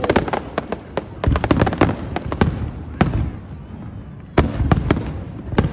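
Fireworks exploding in rapid volleys of sharp bangs and crackles over a low rumble, with a brief lull a little past the middle before another cluster of bangs.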